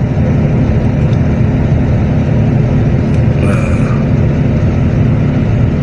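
Engine of a large vehicle, such as a tour bus, idling: a steady low rumble.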